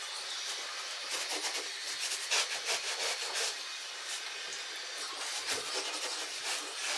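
Grout being worked over ceramic wall tiles: steady rubbing and scraping strokes across the tile faces and joints, in an irregular rhythm.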